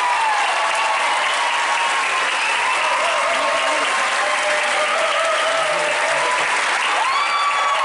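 Audience applauding steadily, with voices cheering over the clapping.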